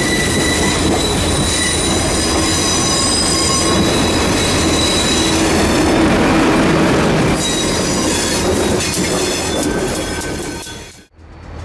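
Passenger train passing close by, its wheels clattering on the rail and giving off high, thin squealing tones, with its diesel locomotives, among them an EMD SD40-2, going past in the last few seconds. The sound cuts off abruptly near the end.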